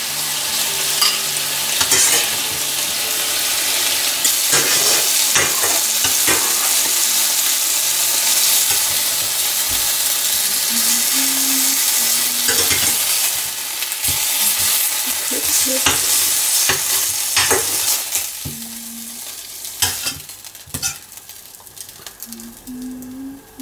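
Chicken pieces sizzling in hot oil in a frying pan, with a slotted spatula scraping and knocking against the pan as they are turned and lifted out. The sizzle dies down near the end as the pan empties.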